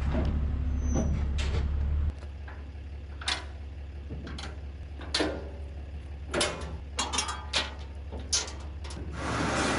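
A steady low engine hum that cuts off abruptly about two seconds in, followed by a scattered series of sharp metal clanks and knocks, several close together near the middle. A rushing noise swells up near the end.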